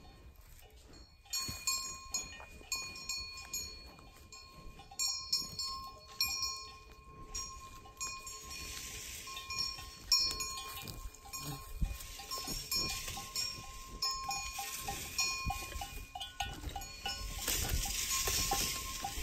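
Bells on grazing livestock clinking and clanking irregularly at several different pitches.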